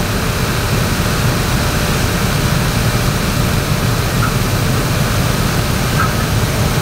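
Steady low rumble of fire apparatus diesel engines running at pump speed under a constant rushing noise, with two brief faint chirps about four and six seconds in.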